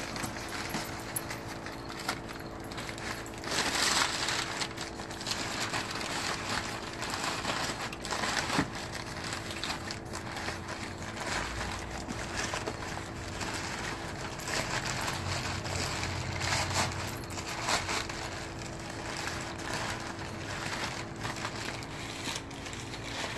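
Crumpled brown kraft packing paper crinkling and rustling in irregular bursts as it is handled and pulled around a long wrapped sword.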